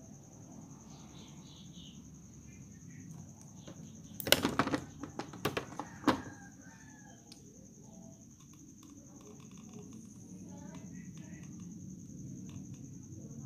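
A quick series of sharp clicks and knocks over about two seconds, a few seconds in, from parts and tools being handled at the workbench. Under it run a steady low hum and a steady thin high-pitched tone.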